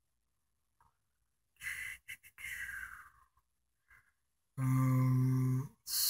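Mostly silence, broken by soft breathy sighs and then a single steady held tone lasting about a second, two-thirds of the way in.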